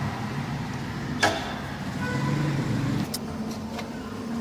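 A screwdriver prying the plastic top panel of a top-loading washing machine off its clips: one sharp click about a second in and a few lighter clicks a couple of seconds later. A low rumble underneath swells and fades between them.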